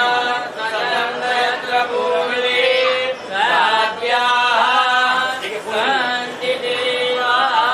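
A single voice chanting Sanskrit mantras in a sung recitation, holding long notes that slide up and down, with brief pauses for breath.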